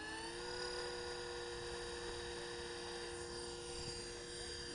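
Blade 330X electric RC helicopter's motor and rotors spinning up: a whine that rises in pitch for about the first half second, then holds a steady pitch at constant head speed.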